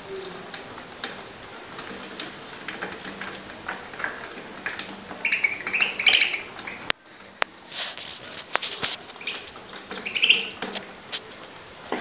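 Budgerigars chirping in short twittering bursts, in a cluster about halfway through and again near the end, with a few sharp clicks after the middle.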